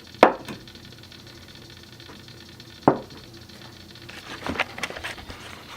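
Two sharp knocks about two and a half seconds apart, then a run of small clicks and rustling near the end.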